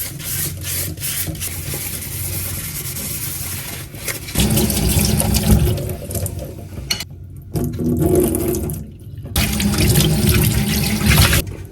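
Water running from a tap into a sink, cutting off briefly twice about seven and nine seconds in before running again.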